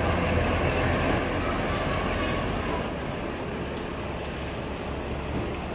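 Blue diesel-hauled passenger train rolling slowly past, with a steady low engine hum and rumble that fade about halfway through.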